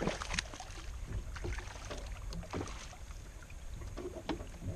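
Steady low wind rumble on the microphone in an open boat, with a few scattered light knocks and taps.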